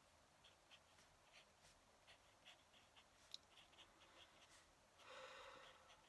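Fountain pen nib scratching faintly across paper in short, quick strokes as words are written, with one sharp tick about three seconds in and a brief, louder rustle near the end.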